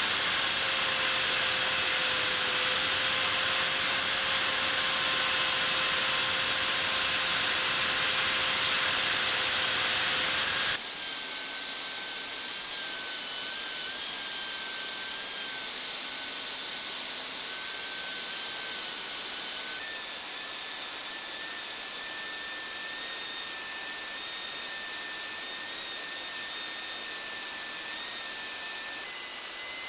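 Power tool running steadily, a continuous rushing noise with a thin whine. The whine's pitch and the noise change abruptly about eleven and twenty seconds in, as at cuts between clips.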